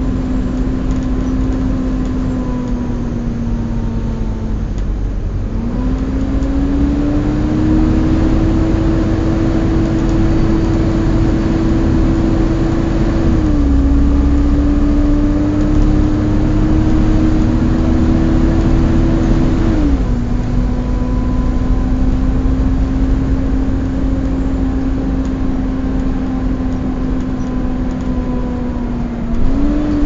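Volvo B7TL bus's engine cooling fan whining like a vacuum cleaner (the 'hoovering' sound), heard inside the upper deck over the engine and road rumble. The whine is steady, with its pitch stepping up about five seconds in, dipping and dropping again through the middle, and rising near the end.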